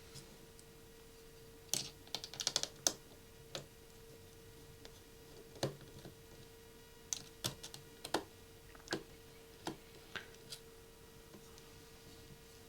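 Small sharp clicks and taps of a precision screwdriver and metal tools working a tiny screw and shield inside an iPhone 6 Plus, irregular and sometimes in quick clusters, over a faint steady hum.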